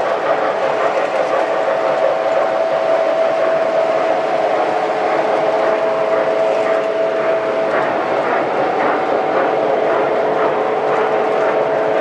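O gauge toy trains running on a layout: a steady whir and whine of motors and gears over the rumble of wheels on the track, with faint clicks from the rail joints in the second half.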